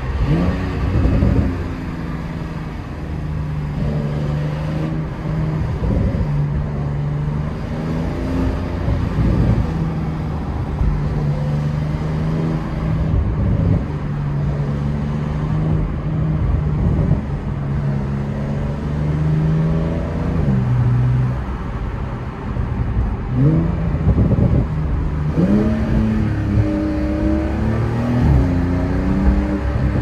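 Porsche 911's flat-six engine heard from inside the cabin while driving at moderate speed, over steady road noise. The engine note mostly holds steady and rises and drops with throttle and gear changes: a rev rise about a second in, a drop a little after two-thirds of the way through, and a few quick rising sweeps near the end.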